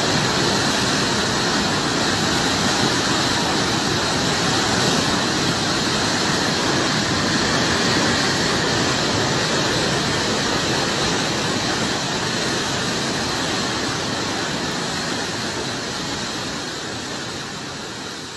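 Fast-flowing floodwater rushing loudly and steadily, easing off a little toward the end.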